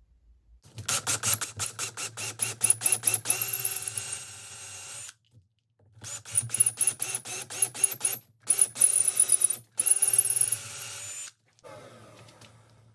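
Workshop machine noise: a rapid run of clicks, then a steady whine with ticking, in several stretches that cut off abruptly.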